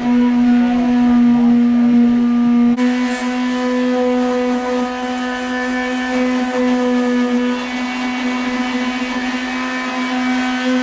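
Electric sander running at a steady pitch, sanding paint on a car's boot panel.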